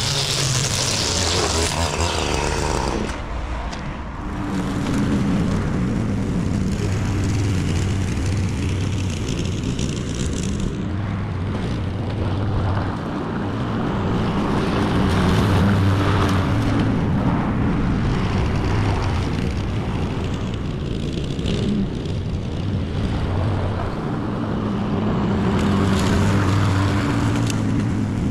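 A petrol string trimmer whining at full speed for about three seconds, cutting off abruptly. Then a Honda petrol walk-behind lawn mower runs steadily as it cuts grass, growing louder and softer as it moves.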